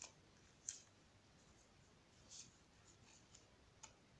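Near silence with a few faint rustles and light ticks of small paper and card tags being handled: once about a second in, again a little past two seconds, and once near the end.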